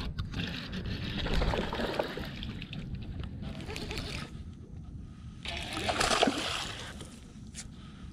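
Water splashing beside a fishing boat, mixed with handling noise. It grows louder twice, about a second in and again around six seconds in.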